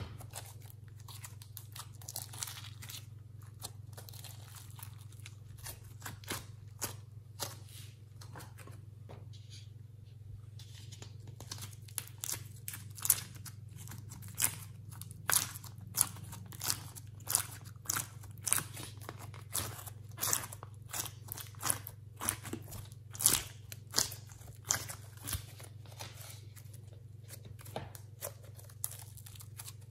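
Slime mixed with clay pieces being squeezed and pressed by hand, giving sticky clicks, pops and crackles that come thick and fast through the middle stretch. A steady low hum runs underneath.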